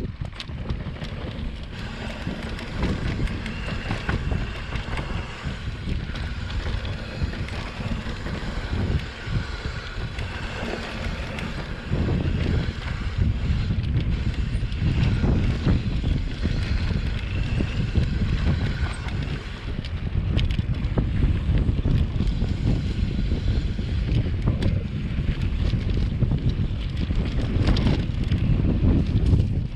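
Wind buffeting the microphone on a moving electric mountain bike, with knocks and rattles from the bike running over the dirt trail. It gets louder from about twelve seconds in.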